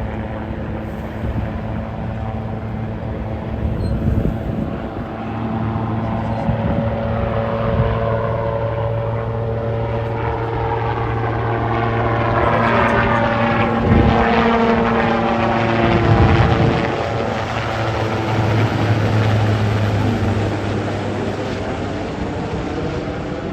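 Marine One helicopter's rotor and turbine engines running, growing louder to a peak around the middle and then easing, with sweeping changes in tone as the helicopter moves.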